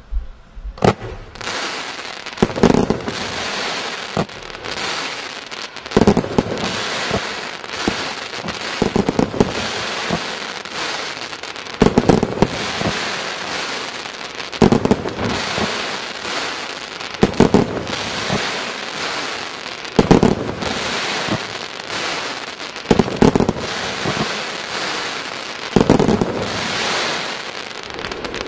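A 100-shot fan-shaped firework cake firing: clusters of loud launch bangs about every three seconds, with a steady hiss between volleys.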